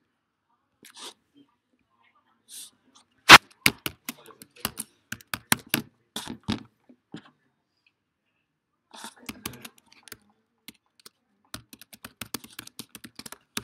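Irregular clicks and taps on a laptop's keyboard and trackpad, with one sharp knock about three seconds in, dense clicking for a few seconds, a pause, then more clicking near the end.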